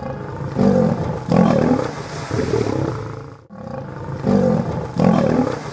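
Lions growling and roaring in a string of rough bursts, dropping out briefly about three and a half seconds in.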